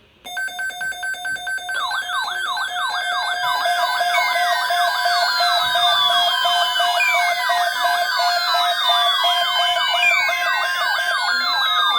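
Layered electronic alert tones, siren-like. A steady tone pulses about four times a second, a fast warbling sweep joins it about two seconds in, and from about four seconds slow falling sweeps are added, building into a dense stack of sirens.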